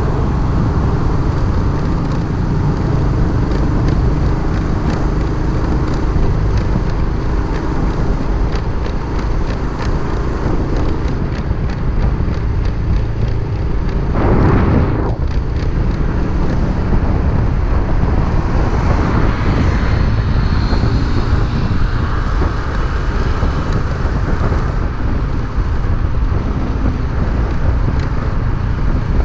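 Motorcycle on the move: wind rushing over the microphone and road noise, with a brief louder whoosh about halfway through.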